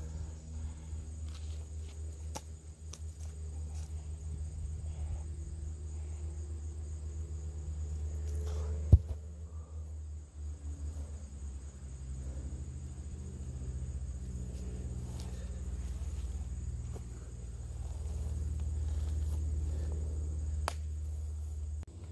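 Outdoor ambience: a steady low rumble under a thin, steady high insect drone, with one sharp knock about nine seconds in that is the loudest sound.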